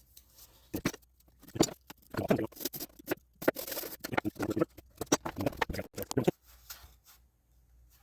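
Irregular light clicks, taps and scratchy rustling from hands handling tools and airframe parts during a model-aircraft repair. The noises come in quick clusters for several seconds, then stop.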